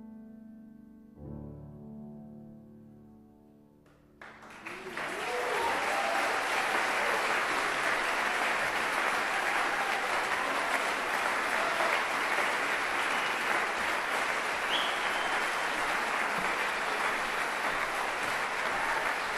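Grand piano playing its last soft chords, which ring and die away; about four seconds in, an audience starts applauding, and the clapping stays loud and steady.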